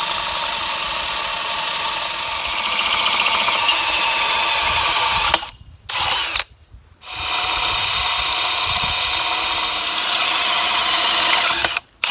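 Cordless drill boring a hole through the wall of a galvanized steel pipe: a steady motor whine for about five seconds, a brief burst, then another run of about five seconds that stops just before the end.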